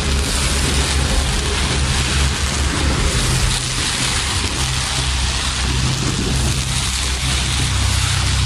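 Pyrotechnic fountains and fireworks giving a loud, steady hissing crackle, with no separate bangs, over a continuous deep low rumble.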